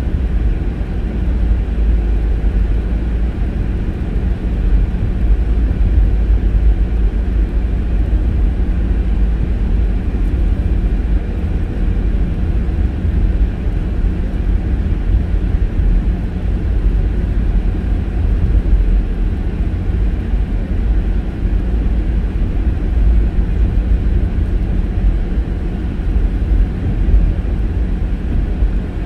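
Steady low rumble of tyres and engine inside the cabin of a car driving along a residential street.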